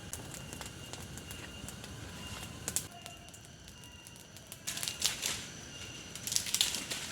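Forest ambience: a steady background hiss with a faint high steady tone, broken by scattered sharp clicks and crackles that cluster about five seconds in and again near the end.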